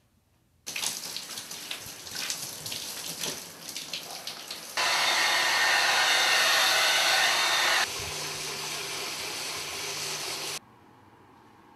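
Shower running, water spattering unevenly. About five seconds in it jumps to a much louder steady rush, and about eight seconds in it drops to a quieter steady hiss with a low hum under it, all of it cutting off abruptly near the end.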